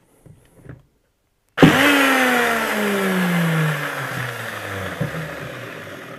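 DWT WS-180 SL angle grinder with no disc fitted, run briefly as a test after its gearbox repair. About a second and a half in, the motor starts abruptly and spins up at once. It then coasts down, its whine falling steadily in pitch and fading over the next four seconds or so.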